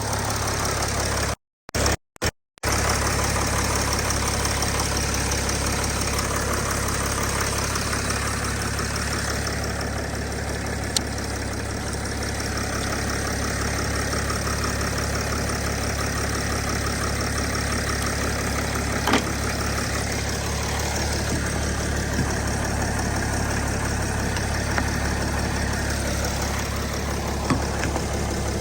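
Engine idling steadily after a jump start from a small solid-state jump starter pack. The sound cuts out briefly three times just before two seconds in, and there are a few faint ticks later on.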